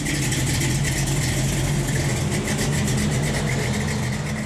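A car engine idling steadily with a low, even rumble, easing off slightly near the end.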